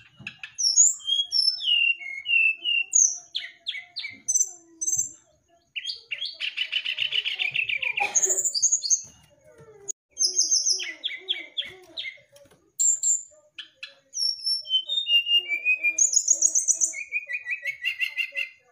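Brown-chested jungle flycatcher singing a varied song of quick whistled slurs, buzzy trills and runs of rapid repeated notes, broken by a couple of short pauses.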